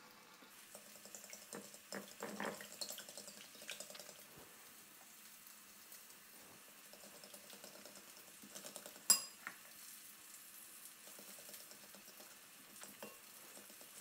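A fork beating eggs, then eggs and grated cheese, in a glass bowl: faint, quick scraping and clicking of the tines against the glass, with one sharper clink about nine seconds in.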